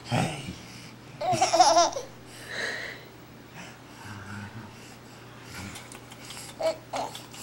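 A 17-week-old baby laughing in short bursts; the loudest is a long, wavering high-pitched laugh about a second in, followed by smaller giggles and squeals.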